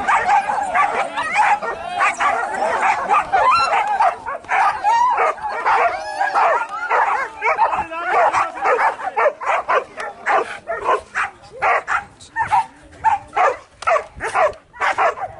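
Leashed greyhound coursing dogs yelping and whining, eager to be slipped after the hare. The calls overlap at first, then turn into a quick run of short, sharp yelps in the second half.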